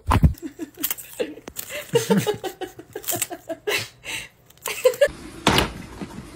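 A person laughing in quick repeated bursts, with a sharp thump at the start and a few clicks in between.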